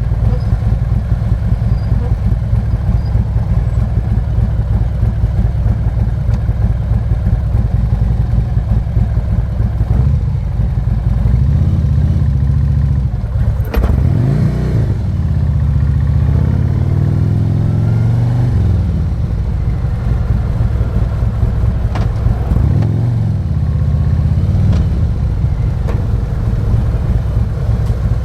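Harley-Davidson Road King's 117 cubic-inch V-twin engine running on the move, with a steady low rumble. About halfway through the revs dip and climb again through a shift and acceleration, with another short rise in revs later on.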